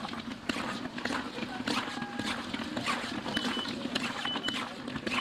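Rapid, irregular clattering and knocking of utensils at a fried-chicken stall, over a steady low hum, with a short high electronic beep sounding three times in the second half.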